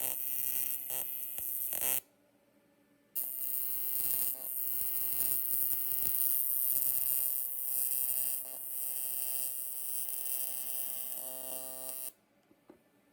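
AC TIG welding arc on aluminum, buzzing steadily with a high hiss. The arc cuts off about two seconds in, strikes again a second later and runs until it cuts off near the end.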